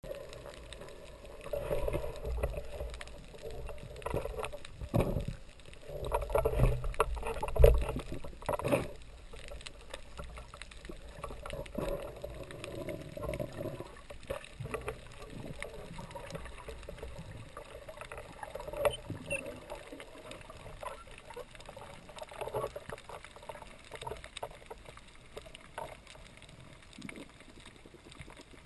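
Underwater ambience picked up through a camera's waterproof housing as a spearfisher swims: a muffled rush of water with dull knocks and low rumbles, loudest in the first several seconds, then settling into a steadier low hiss with occasional taps.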